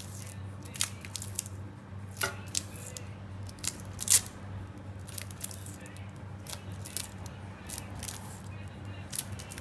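Double-sided sticky tape being pulled off its roll and squeezed around a wire lampshade ring: scattered short crackles and ticks, the sharpest about four seconds in, over a steady low hum.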